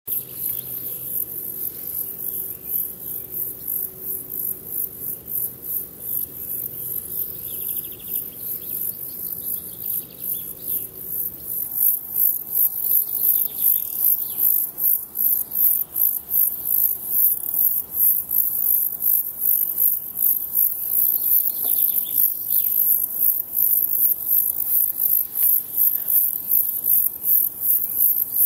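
Crickets chirping in a fast, even, high-pitched pulsing that grows louder about twelve seconds in, with faint bird calls now and then. A faint low steady hum lies under it for the first dozen seconds.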